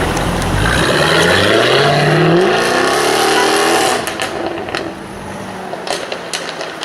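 Jaguar F-Type R's supercharged V8 revving, climbing steadily in pitch for about three seconds, then lifting off with scattered exhaust pops and crackles.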